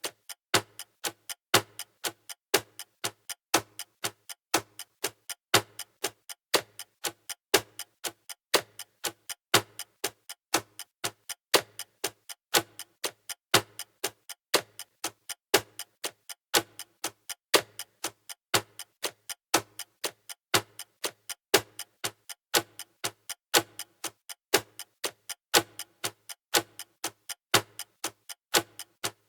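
Clock ticking steadily, about two evenly spaced ticks a second, in a regular tick-tock.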